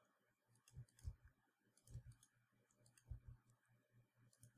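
A few faint computer mouse clicks, about a second apart, over near silence.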